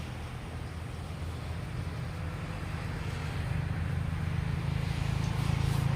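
A motor running steadily with a low hum, growing louder about halfway through.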